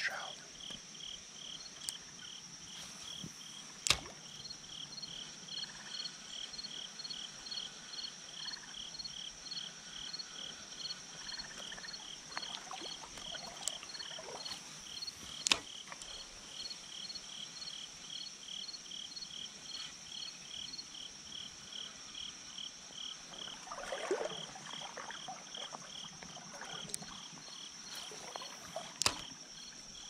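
Insects chirping in a steady rhythm, about two chirps a second, over a constant high-pitched insect drone. A few sharp clicks stand out: one about four seconds in, the loudest about halfway through, and another near the end.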